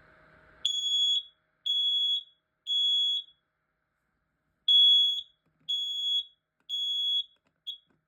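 Smoke alarm sounding its high-pitched piezo beep in the three-beep temporal pattern: three beeps, a pause, three more, then a short clipped beep near the end as it stops. It has been set off by aerosol test smoke.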